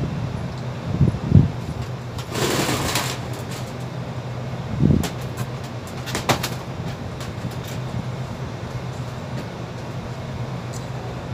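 Steady low hum of rooftop HVAC equipment, with a few dull thumps and a brief rush of noise as the sheet-metal ductwork is handled.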